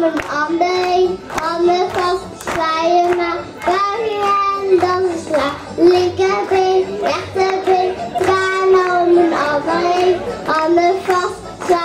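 A young girl singing a Dutch children's song into a handheld microphone, in a clear voice with held notes and short breaks between phrases.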